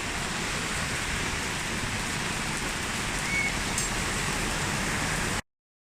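Steady rain falling, an even hiss. It cuts off abruptly near the end.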